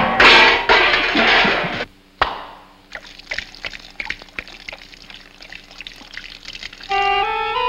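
Cartoon sound effects of paint pouring and dripping from tipped-over paint cans: a loud rushing noise for about two seconds, a single sharp knock, then a quieter trickle with many small drips. Orchestral music comes in near the end.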